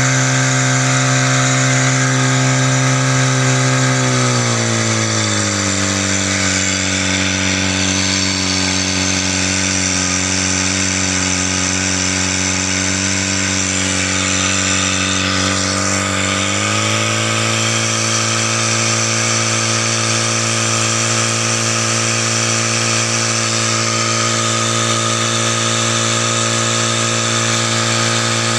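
Portable fire pump's small engine being test-run at a steady speed. About four seconds in its speed drops to a lower steady run, and about sixteen seconds in it rises back to the higher speed.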